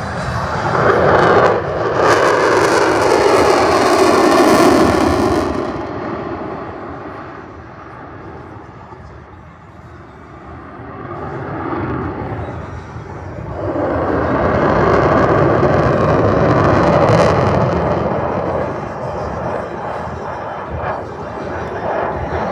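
Aircraft flying past at an airshow, loud engine noise that swells, fades away about halfway through, then builds into a second loud pass.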